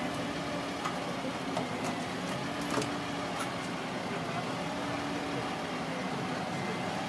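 Steady engine hum with a held tone, and several sharp metallic clicks and snaps in the first half as firefighters work a hydraulic rescue tool on the crushed front of a car. Voices can be heard behind it.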